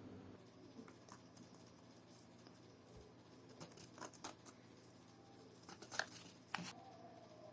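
Faint, scattered clicks and light taps of small watch parts and tools being handled, the sharpest two about six seconds in and half a second later.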